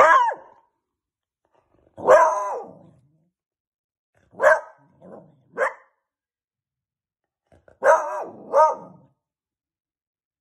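Beagle puppy barking: about seven short, pitched barks in groups of one to three, with pauses of a second or two between groups.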